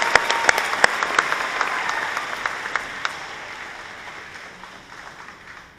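Crowd applauding, with sharp claps from people close by; the applause dies away steadily and has almost stopped by the end.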